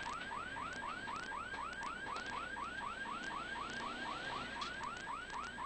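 An electronic alarm or siren-like warning tone chirping rapidly, about five rising chirps a second, steady throughout, with faint clicks and rattles.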